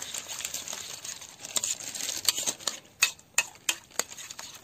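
Metal spoon stirring beaten egg with crushed potato chips and chopped vegetables in a bowl, the chips rustling and scraping. A few sharp taps of the spoon come near the end.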